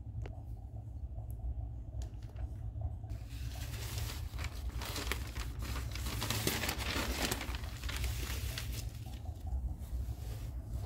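Newspaper rustling and crinkling as sheets are handled, unfolded and spread flat, starting about three seconds in and settling down near the end. A steady low hum sits underneath.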